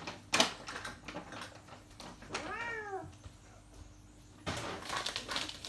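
A cat meowing once, a short call that rises and then falls in pitch, about two and a half seconds in. A sharp knock sounds just after the start, and there is a stretch of rustling near the end.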